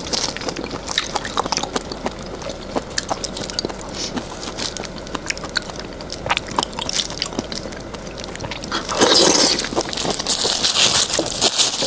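Close-miked mouth sounds of eating raw shrimp: wet chewing with many small clicks and smacks, louder about nine seconds in and again near the end.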